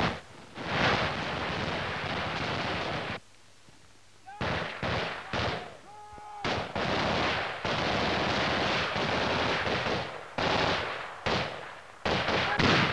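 Automatic gunfire: two long sustained bursts, a short pause between them, then several shorter bursts near the end.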